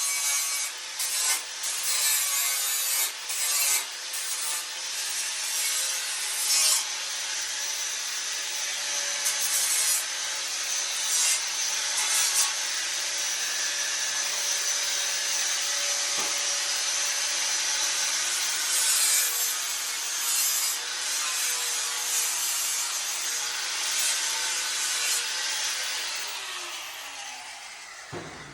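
Power grinder grinding the edges of a notch cut in a steel tractor frame: a steady, loud rasping with brief breaks in contact. Near the end it is released and spins down with a falling whine.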